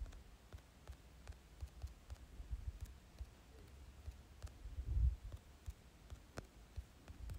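Faint, irregular clicks of typing on a smartphone's on-screen keyboard, with a soft low bump about five seconds in.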